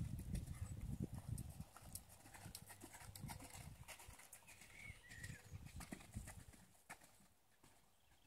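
A horse's hoofbeats, a quick run of low thuds that grows steadily fainter as the horse moves away, until it is almost quiet near the end.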